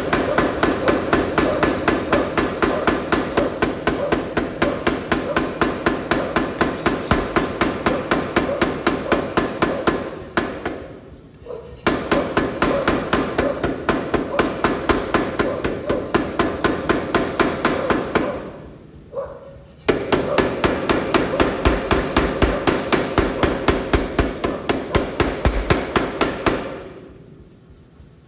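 Power hammer's dies striking a hot stainless-clad San Mai billet in rapid, even blows, several a second, drawing the steel out for length. The blows come in three long runs with short pauses between, and stop near the end.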